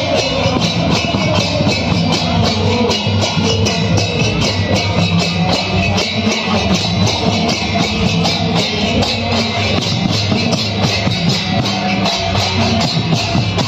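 Folk procession band playing hand cymbals and barrel drums: the cymbals clash in a fast, steady rhythm over the drums' beat, loud and continuous.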